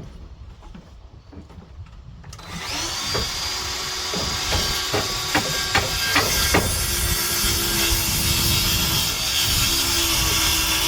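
A power saw starts about two seconds in and runs steadily with a constant whine, cutting into wooden deck boards. A few sharp knocks come while it is cutting.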